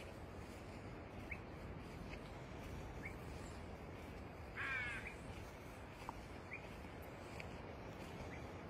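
A white parrot gives one short, harsh squawk about halfway through. Behind it are a faint steady hiss and a few faint, short, high chirps now and then.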